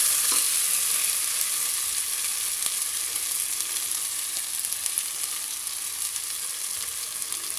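Sliced onions, shallots and green chillies sizzling steadily in hot oil and ghee in a pressure cooker, being sautéed soft with a pinch of salt.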